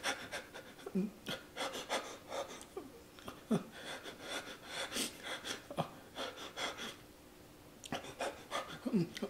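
A man panting and sucking air in sharp, hissing breaths through an open mouth, with a few short sounds in his voice, from the burning heat of the Paqui One Chip Challenge chip in his mouth.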